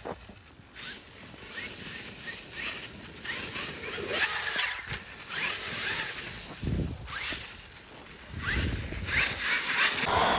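Traxxas X-Maxx 8S RC monster truck driving, its brushless motor whining up in short rising bursts several times as the throttle is worked, with tyres scrabbling over the ground and a couple of low thumps.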